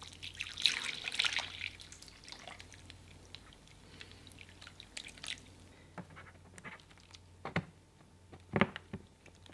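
Water from a plastic watering can splashing onto compost and plants, strongest in the first two seconds, then thinning to drips and pattering. A few sharp knocks and clicks come near the end.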